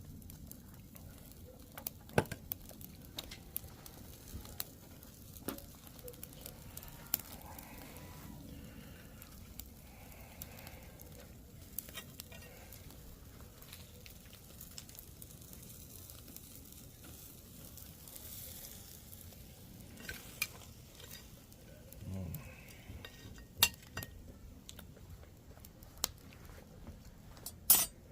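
Food sizzling on a homemade toolbox barbecue grill, a steady low hiss with scattered sharp clicks and taps, a few louder ones near the end.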